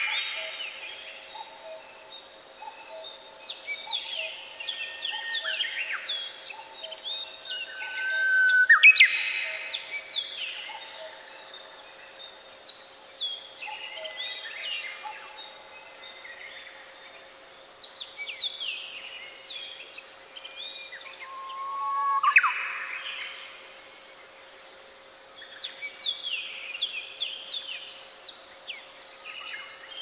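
Several small songbirds singing and calling over one another: quick whistled chirps and sweeping notes. A louder phrase, a held whistle ending in a fast upward sweep, comes about 9 seconds in and again about 22 seconds in.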